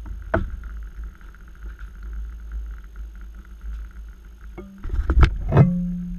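Low steady rumble of wind on an action camera's microphone, with a sharp click about half a second in. Near the end come several loud knocks and scrapes as the camera is handled and picked up.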